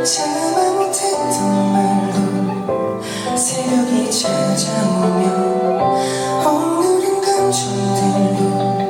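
Live band music: a slow, tender song with sustained chords and a melody line.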